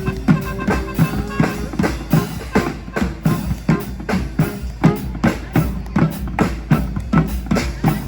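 Live street band music driven by drums: bass drum and snare keep a steady beat, about two to three strikes a second, with held notes from other instruments over it.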